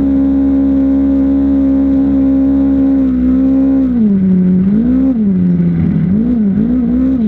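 Off-road vehicle engine held at steady high revs, then the revs drop and rise several times in quick succession near the end.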